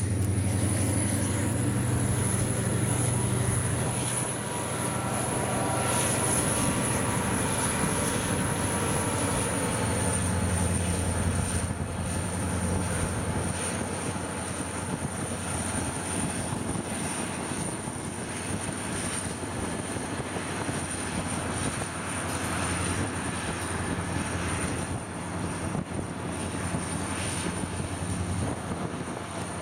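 EMD 645 diesel engine of an ex-Norfolk & Western SD40-2 locomotive working as it moves slugs through the yard: a steady low drone with a high whine that drops a little in pitch about ten seconds in.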